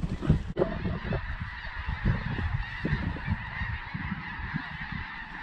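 A large flock of snow geese calling: a dense, steady chorus of high honking chatter that starts abruptly about half a second in, over a low wind rumble on the microphone.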